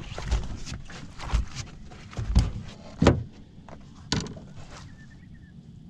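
About five knocks and thumps in a small boat, spaced roughly a second apart, as a caught flathead is handled and measured on a brag mat; after about four seconds it goes quieter.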